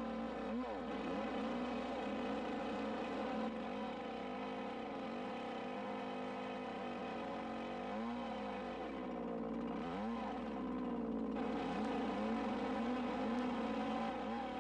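Two-stroke chainsaw running under load as it cuts a tenon into a log. Its engine pitch rises and falls with the cut and drops lower for a few seconds past the middle as the saw bogs into the wood.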